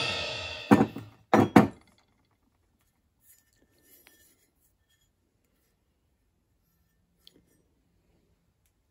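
Background music fades out, then three sharp clinks come in quick succession about a second in as the steel WarWood mattock head is handled, followed by a few faint handling ticks.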